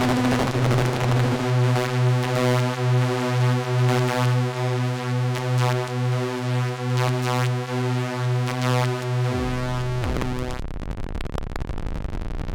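MacBeth M5N analogue synthesizer sounding one sustained, bass-heavy note whose level pulses steadily. About nine seconds in, the pitch drops steeply and the note gives way to a rushing noise.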